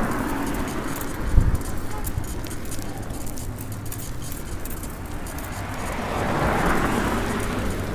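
Road traffic heard from the roadside while riding, with a steady low rumble like wind on a phone microphone. A single low thump comes about a second and a half in, and a vehicle swells past near the end.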